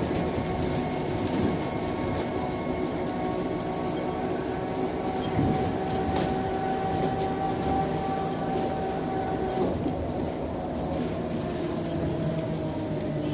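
Scania K270 trolleybus running, its electric traction motor whining over the rumble and rattle of the bus. The whine holds steady through the middle, then slides down in pitch as it fades.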